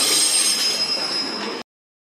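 Railway coaches running through the station with their wheels squealing, several high steady tones over the rolling noise, fading as they move away. The sound cuts off abruptly about a second and a half in.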